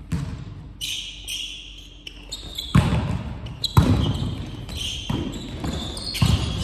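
Volleyball being struck in play in a sports hall: four hard thuds of the ball being hit or landing, one right at the start, then about three seconds in, near four seconds and past six seconds, each echoing in the hall. Short high squeaks sound between the hits.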